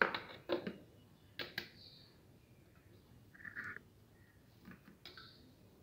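Light plastic knocks and clicks from a food processor bowl being tipped and tapped against a plastic mixing bowl as minced chicken is emptied out, with a short scrape about three and a half seconds in.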